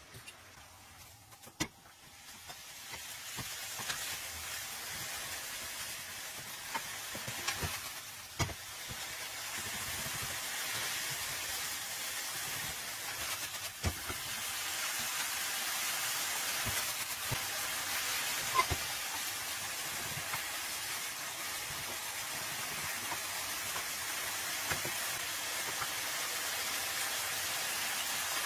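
Spaghetti and artichokes sizzling and hissing in a hot frying pan, growing louder over the first few seconds and then steady, with a few sharp clicks of a fork against the pan.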